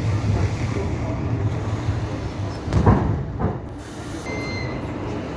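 Passenger train running on the rails: a steady low rumble with two sharp knocks of the wheels over a rail joint about three seconds in, after which the rumble is a little quieter.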